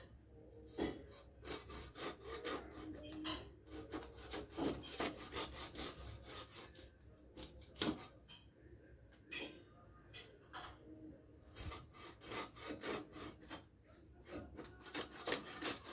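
A piece of hilsa fish being scraped and cut against a boti's fixed curved blade: a run of irregular rasping strokes, one or two a second, with a sharper one about eight seconds in.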